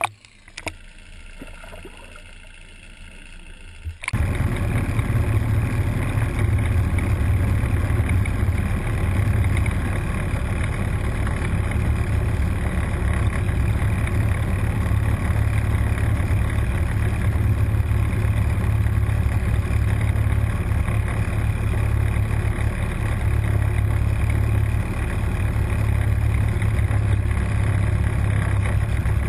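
A couple of small splashes as a fish is let go into the water. Then, from about four seconds in, a loud steady rumble of wind buffeting the microphone.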